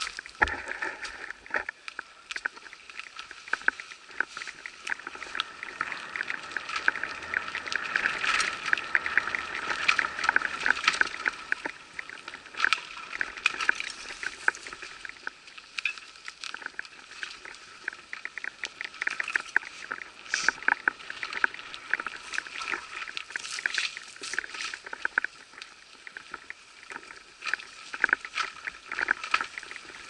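Mountain bike being ridden over a rough forest trail: a continuous clatter of rapid clicks and knocks from the bike rattling and its tyres on dirt and leaf litter.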